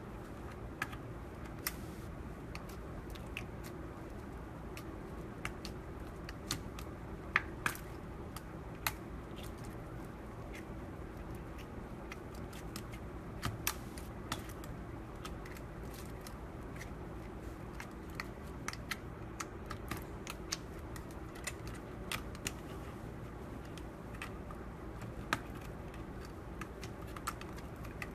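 Slime being pressed and squished by hand, giving scattered small sharp clicks and pops at irregular moments over a steady low background hum.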